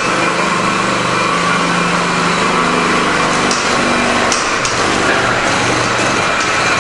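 Frame machine's hydraulic pump running steadily, pulling the chain on a crashed car's rear corner to straighten it.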